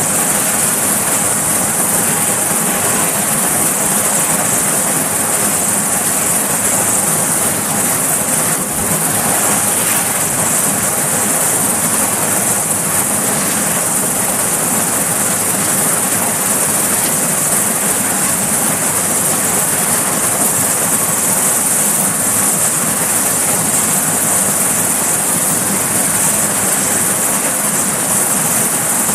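Sikorsky S-61 helicopter running on the ground with its rotors turning, its twin turboshaft engines and rotors making a loud, steady rush with a strong high hiss and faint steady tones.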